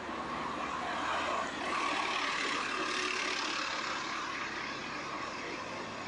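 City street traffic: a motor vehicle passing close by, its noise swelling about a second in and slowly fading toward the end.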